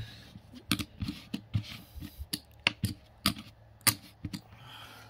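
Small metal trading-card tins and cards being handled and set down: about ten sharp, irregularly spaced clicks and taps.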